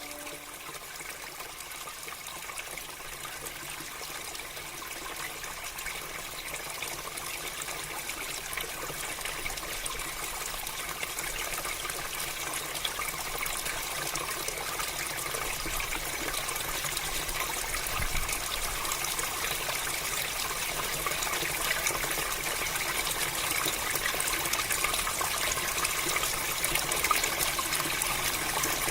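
Water flowing in a rice-paddy irrigation channel: a steady trickling rush that grows gradually louder.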